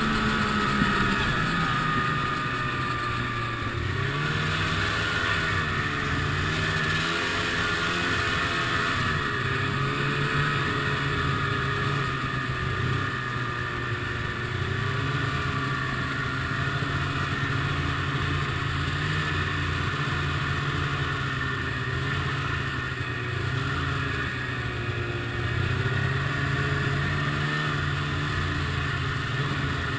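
Ski-Doo MXZ snowmobile's two-stroke engine running steadily while riding, its pitch rising and falling a little with the throttle.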